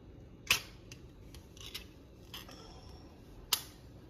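Two sharp clicks about three seconds apart, with a few faint taps and a short scrape between them, from kitchen things being handled while cooking.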